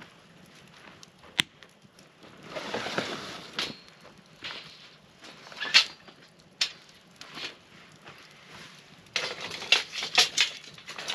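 Camp cooking gear being handled, with a sharp click, rustling and single knocks. Near the end comes a quick run of metal clanks and scrapes as a steel grill grate is set down over a campfire ring of rocks.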